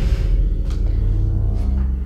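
Tense, dark film score swelling in on a loud, deep sustained low note, fading near the end.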